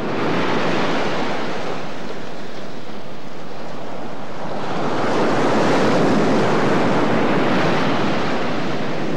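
Ocean surf washing: a steady rush of wave noise that swells and deepens about five seconds in.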